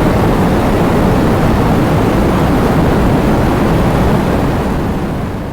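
Heavy rain falling steadily: a dense, even hiss and rumble that begins to fade out near the end.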